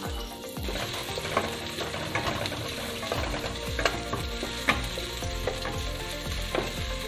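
Chopped garlic and sliced onion sizzling in hot oil in a stainless steel pot, stirred with a wooden spoon, with a steady frying hiss and scattered sharp clicks.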